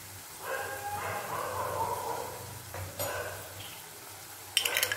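Diced vegetables with dark soy sauce sizzling faintly in a frying pan. Behind it, a pitched, voice-like call sounds twice. A short, louder scraping clatter comes near the end.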